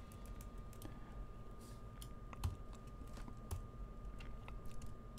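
Faint, irregular computer keyboard keystrokes and clicks, several light taps spread across a few seconds, over a faint steady high whine.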